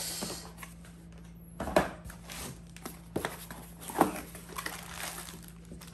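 A small cardboard box being handled and opened by hand: a few light knocks and scrapes of cardboard, over a low steady hum.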